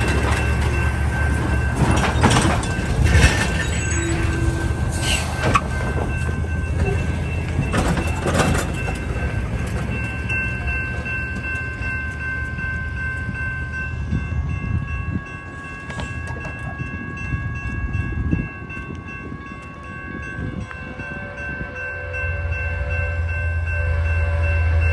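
Railroad crossing warning bell ringing steadily while a semi truck's diesel engine pulls across the tracks in the first several seconds. Near the end the deep rumble of an approaching train grows louder, and a train horn sounds in the distance.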